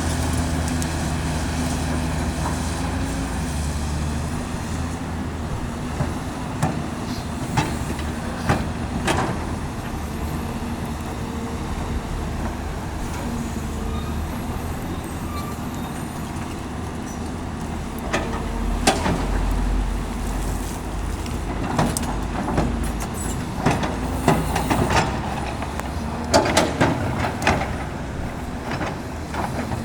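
Caterpillar 329D L hydraulic excavator's diesel engine running steadily, with a scatter of sharp clanks and knocks from the bucket and machine as it loads excavated earth. The knocks come in clusters, most of all in the last third.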